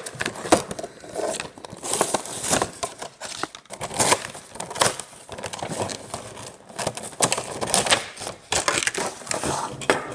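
Toy packaging being torn open by hand: cardboard backing ripping and a clear plastic blister crinkling and crackling, a run of irregular rustles and rips.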